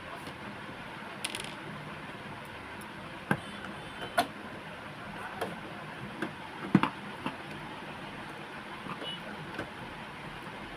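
Small clicks and taps of printer parts being handled during reassembly, about eight sharp ones scattered irregularly, over a steady background hiss.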